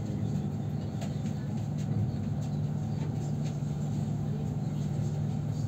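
Cabin sound of a moving electric commuter train: a steady low rumble and hum of the train running on the track, with faint light ticks and rattles.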